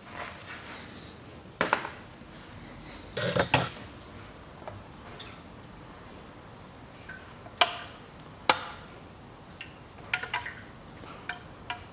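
Scattered metallic clicks and clanks from a ratchet and the CVT oil pan as the pan is unbolted and worked loose. The clicks are irregular, with the loudest cluster about three seconds in and two single sharp knocks later on.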